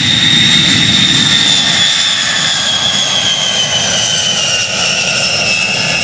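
B-52H Stratofortress's eight Pratt & Whitney TF33 turbofan engines on a low pass: loud jet engine noise with a high whine that slowly falls in pitch as the bomber goes by.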